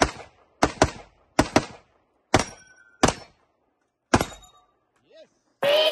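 Gunshots at a practice shooting stage: about eight shots, several fired in quick pairs, each with a short echo, coming further apart towards the end. Music starts just before the end.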